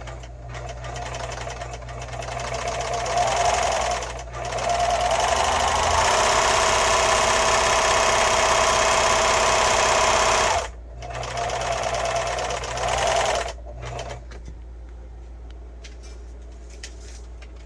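Elnita Lock T33 serger running in short spurts, then at a steady full speed for about six seconds. It stops, runs again briefly, and stops about two-thirds of the way through, leaving only a low hum.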